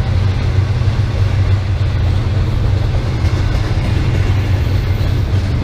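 A BNSF intermodal freight train passing close by: a steady, loud, low rumble.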